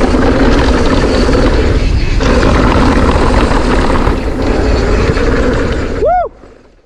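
Wind rush and trail rumble from a camera riding along on a mountain bike during a descent, loud and steady. Just after six seconds a brief squeal rises and falls in pitch, and then the sound cuts off abruptly.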